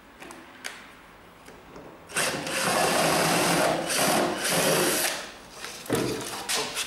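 Electric screwdriver running in long bursts for about three seconds, backing screws out of a plywood crate panel, then a knock as the loosened board is pulled away near the end.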